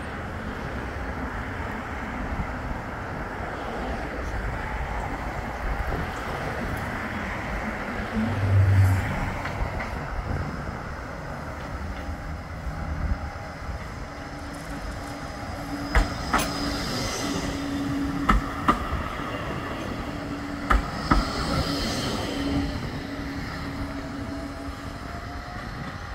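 Bombardier Flexity 2 tram running in on the track: a steady electric motor hum, sharp clicks of the wheels over rail joints, and a faint high wheel squeal, over wind on the microphone. Near the end a rising motor whine as the tram pulls away.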